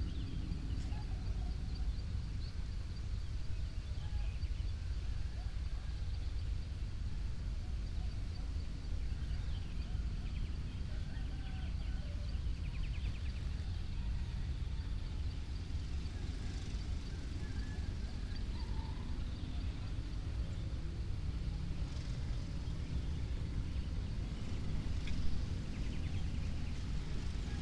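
Village dawn ambience: scattered short bird and poultry calls over a steady low rumble, with a faint steady high whine. One short louder sound about 25 seconds in.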